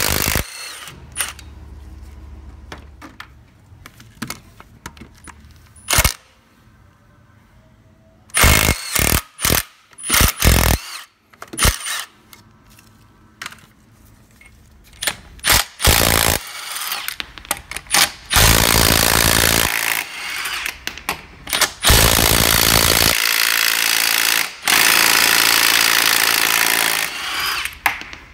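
Milwaukee M18 Fuel 3/8-inch compact brushless cordless impact wrench hammering on bolts. It starts with short bursts of rapid impacting, then runs in longer, loud stretches of hammering through the second half.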